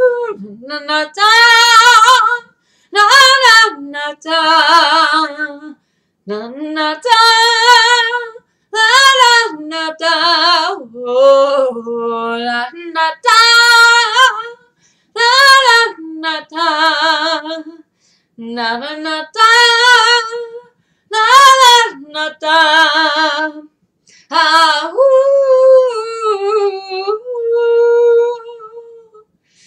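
A woman singing unaccompanied, one voice in short phrases of a second or two with brief breaths between, the held notes wavering with vibrato. Over the last few seconds the phrases grow softer and trail off into quieter held notes.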